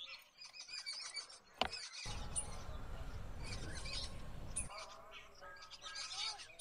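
Small birds chirping repeatedly, with a sharp click about one and a half seconds in and a low rumbling noise from about two seconds in to nearly five seconds in.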